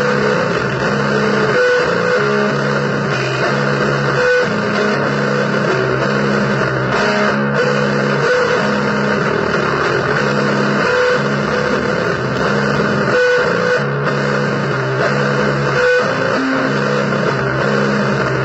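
Blues-based noise music on distorted guitar: a repeating low riff under a dense, steady wash of noise, with short higher notes cutting through now and then.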